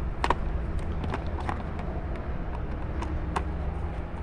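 A screwdriver working small screws out of the plastic button housing of a toy ride-on car's sound board: scattered light clicks and taps, the sharpest about a quarter second in, over a steady low hum.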